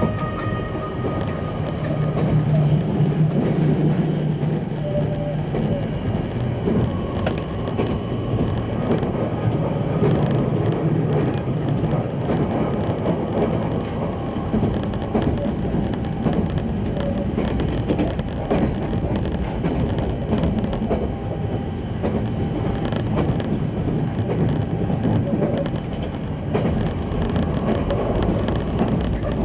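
Steady running noise inside the passenger cabin of a JR Kyushu 883 series electric limited express travelling at speed: an even rumble of wheels on the rails.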